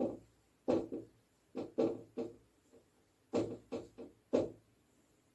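Writing on a board: about a dozen short, scratchy strokes in irregular clusters, with short gaps between them.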